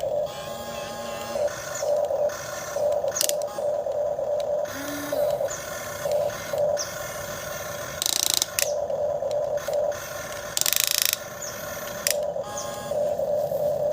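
Small electric motors and gearboxes of radio-controlled construction models (an excavator and dump truck) whirring in short starts and stops. Two louder, noisier bursts come a little past the middle.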